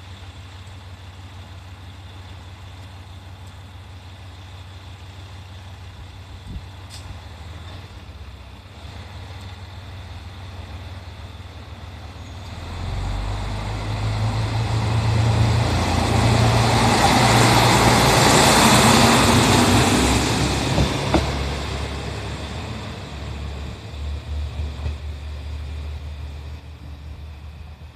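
KiHa 54 diesel railcar idling at the platform with a steady low hum, then its diesel engine revs up about twelve seconds in as it pulls away. The sound swells as the railcar passes close by and fades as it runs off down the line.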